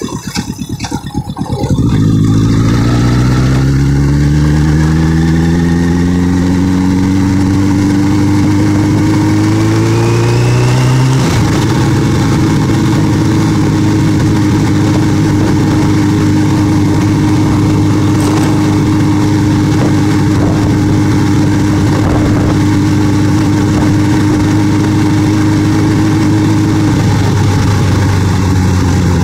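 Motorcycle engine pulling hard under acceleration, its note rising steadily, then changing abruptly with a gear shift about eleven seconds in and holding an even note at cruising speed, with wind noise throughout.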